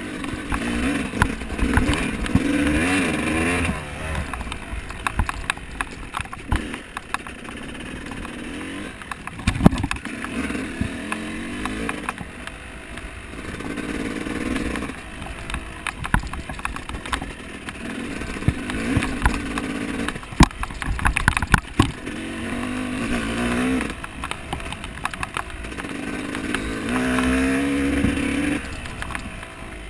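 Off-road motorcycle engine revving up and down in repeated surges every few seconds, as in riding over rough ground, with frequent sharp knocks and clatter.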